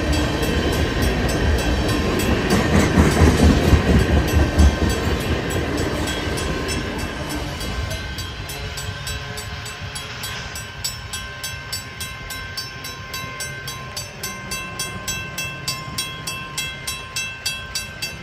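Freight train of tank cars rolling over the rails, its wheel rumble fading in the first half as the last cars clear the crossing. The level-crossing warning bell rings steadily, about two strokes a second, and stops near the end as the crossing clears.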